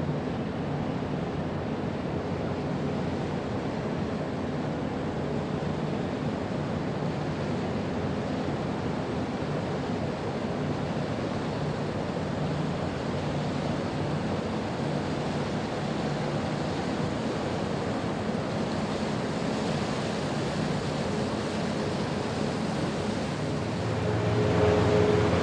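Steady wind and water noise with a faint low engine hum from ships on the water. About a second before the end it gets louder, with a stronger low engine drone.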